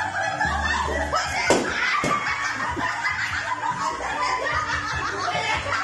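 A group of people laughing and talking over one another, with two sharp smacks about a second and a half and two seconds in.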